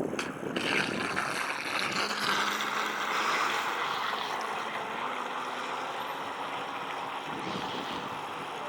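Electric RC speedboat with a brushless motor running on the water: a steady rushing hiss.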